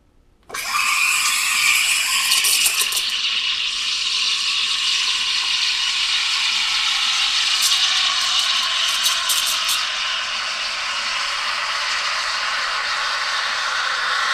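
Electric coffee grinder switched on about half a second in and grinding beans steadily, with a rattling, crackly patter in a few places.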